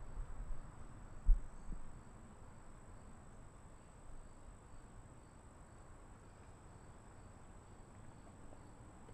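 Quiet room tone with a steady faint high-pitched whine, broken in the first two seconds by a few low thumps, the loudest about a second in.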